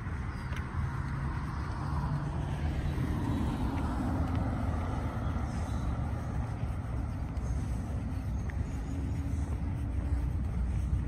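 A car driving past and away on new asphalt, its tyre and engine noise swelling a few seconds in and then fading, over a steady low rumble.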